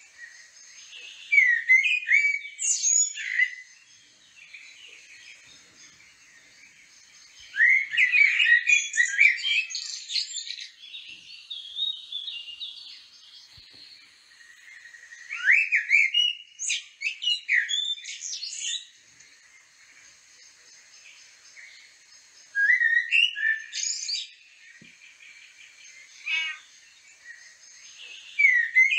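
Birdsong: a songbird sings phrases of quick whistles and chirps, each two to three seconds long, about every six or seven seconds, with faint high chirping between them.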